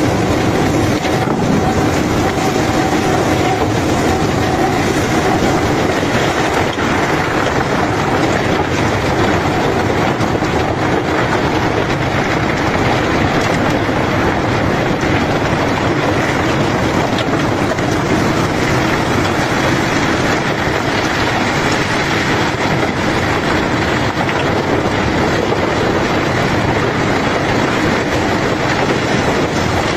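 Steady, loud rumble and rattle of heavy machinery unloading gravel from a cargo ship, with gravel clattering continuously.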